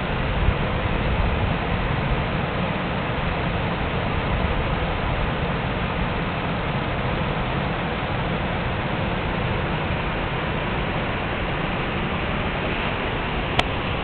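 Steady rushing of river water over a rocky cascade, an even hiss with no changes, and a single sharp click near the end.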